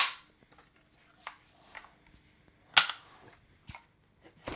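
Sharp mechanical clicks and clacks from handling an AR-style 12-gauge shotgun and its parts, the two loudest at the very start and a little under three seconds in, with a few lighter clicks between.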